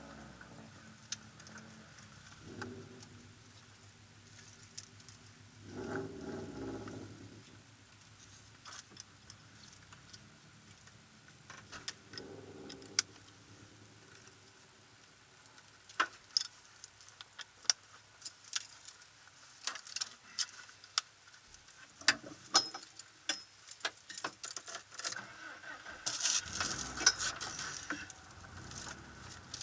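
Quiet car interior with scattered small clicks and jingling rattles that grow thicker over the last ten seconds, and a low engine sound that swells briefly about six seconds in.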